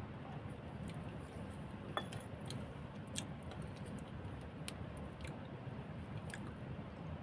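Close-up chewing of crisp food, with scattered small crunches and clicks, the sharpest about two seconds in, over a steady low background noise.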